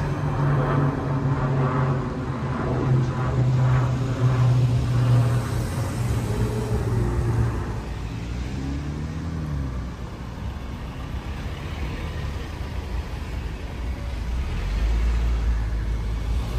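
Street traffic: car engines running and passing. A steady engine hum for the first several seconds, a brief rising-and-falling engine tone about eight seconds in, and a louder low rumble from vehicles near the end.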